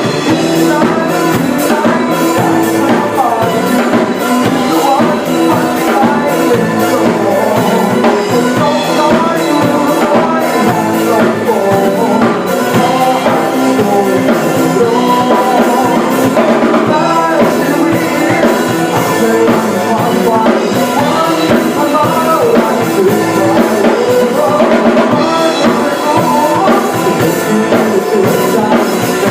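Band music with a drum kit: an instrumental passage between sung verses, a lead melody wavering over a steady beat.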